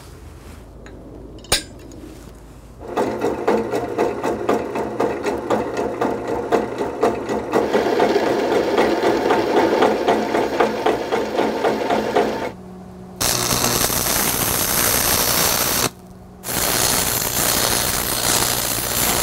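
A drill press boring into half-inch steel plate, with a rapid rhythmic chatter. Then come two runs of electric arc welding a steel tube onto the plate, each a steady, even crackling hiss, with a brief break between them.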